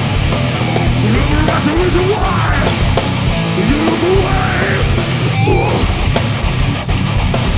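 A heavy metal band playing live, loud and dense: distorted guitar, bass and drums, with a few rising pitch slides over the top.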